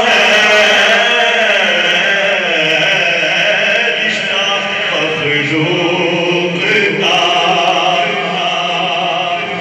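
Men's devotional chanting in long, held, slowly wavering notes.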